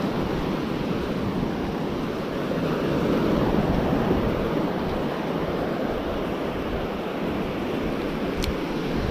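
Small waves washing up on a sandy beach, with wind on the microphone: a steady rushing noise. A single brief sharp click comes near the end.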